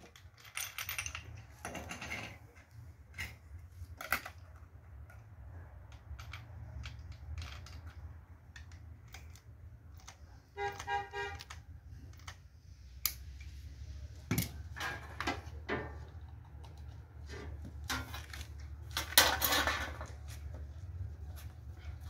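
Handling noises from a corded angle grinder being fitted with a flap disc: scattered clicks, knocks and metal rattles, with a short tone about halfway through. A steady low hum runs underneath; the grinder itself is not yet running.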